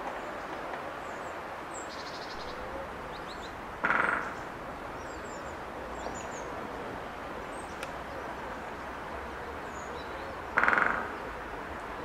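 Great spotted woodpecker drumming: two rapid rolls of bill strikes on wood, each about half a second long and some seven seconds apart, a drumming typically taken as a territorial signal. A steady background hiss and a few faint high bird chirps lie underneath.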